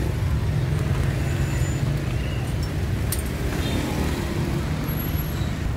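Steady rumble of street traffic, with a few faint light clicks.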